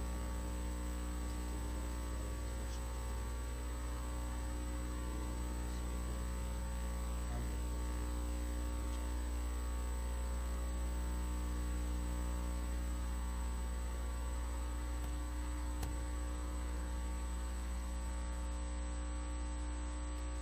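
Steady electrical mains hum with a light hiss, unchanging throughout.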